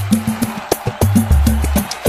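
Samba percussion backing track playing a partido-alto groove at 100 beats per minute: sharp, quick high strokes over repeated deep drum notes.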